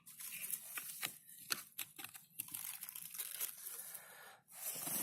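Irregular crinkling and crackling of handled material, a run of sharp crackles over a scratchy rustle that thins out in the second half.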